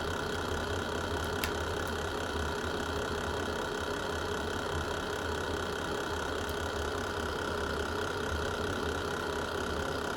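Wood fire burning in a fireplace: a steady low rumble of flames with one sharp crackle about a second and a half in.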